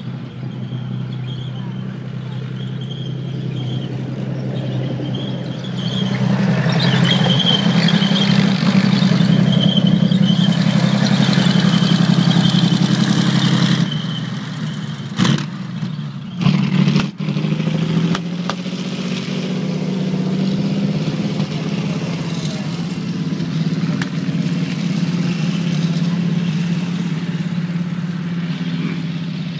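Cromwell tank's Rolls-Royce Meteor V12 engine running steadily. It grows louder from about six seconds in and eases off around fourteen seconds, with a thin high whine over it in the first half. A few sharp knocks come shortly after the engine eases.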